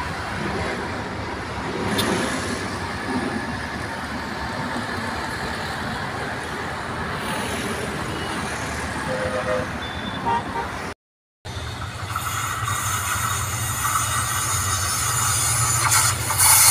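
Road traffic with a few short car horn toots. After a cut about eleven seconds in, a diesel locomotive's low engine hum comes in and grows steadily louder as the train approaches.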